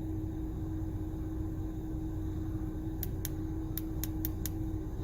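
Steady low hum inside the cab of a 2nd-gen Ford Raptor, with a steady tone through it. About three seconds in come six quick, light clicks over a second and a half.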